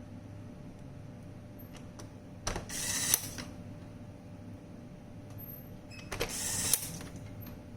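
Two short mechanical rasping bursts, each well under a second, beginning and ending with a click, about three and a half seconds apart, over a steady low hum.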